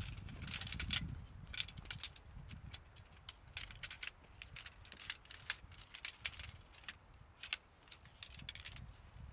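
Sections of a shock-corded tent pole clicking and rattling as they are unfolded and slotted together, a quick irregular run of light sharp clicks.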